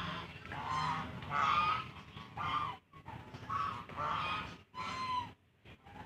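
A flock of white domestic geese honking, short calls one after another every half second to a second, falling quiet near the end.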